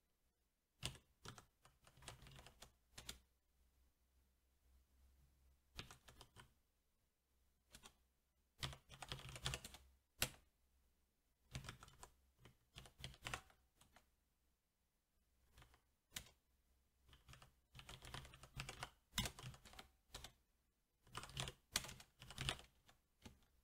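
SteelSeries 6Gv2 mechanical keyboard with Cherry MX Black switches being typed on, in short bursts of keystrokes separated by pauses of a second or two.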